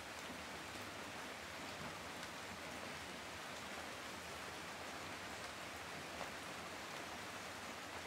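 Steady rain falling: an even hiss with a few faint drop ticks scattered through it.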